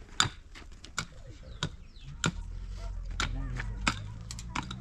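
Irregular sharp knocks from building work, around eight of them, over a low steady hum that sets in about halfway through.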